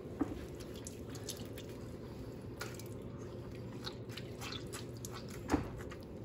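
Water dripping and squishing out of a wet Maltese's coat as it is squeezed by hand over a sink, with scattered faint ticks and two soft knocks, one just after the start and one near the end, over a low steady hum.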